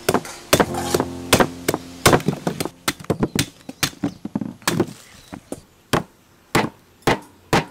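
Steel meat cleaver chopping into nypa palm fruits on a wooden chopping block: a quick run of sharp chops, spacing out to about two a second near the end.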